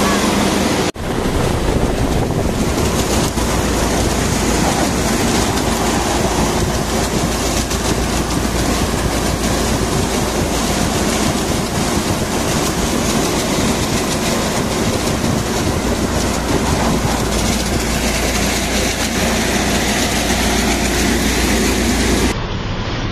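Five-fan paddy thresher running under full load, driven by a Mahindra 295 tractor. A loud, steady mechanical rattle and rush from the threshing drum and fans as paddy straw is fed in, with the tractor engine pulling under the load.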